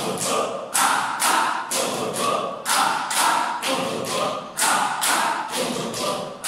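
A group of people clapping their hands together in a steady rhythm, about four claps every two seconds, while chanting in unison as a laughter yoga exercise.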